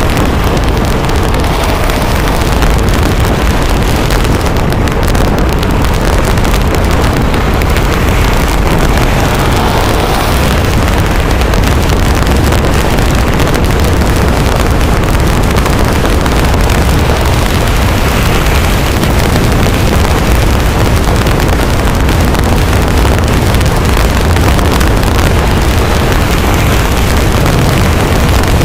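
Dirt bike running steadily at speed, its engine mixed with heavy wind buffeting on the microphone.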